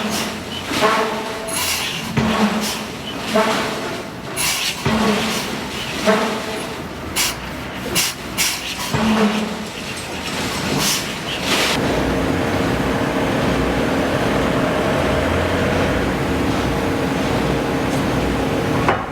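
Hydraulic forging hammer striking steel in a series of blows, about one a second, each with a short metallic ring. About eleven and a half seconds in, the blows stop and a steady machinery drone with a humming tone takes over.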